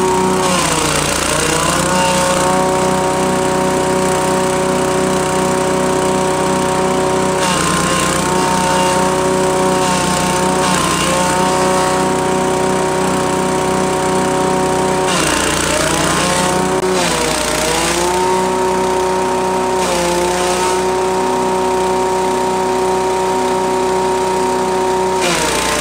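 Engine-driven grass chopper running at speed while grass stalks are fed in and shredded by its blades. The engine's pitch sags and recovers several times as each load of grass pulls it down.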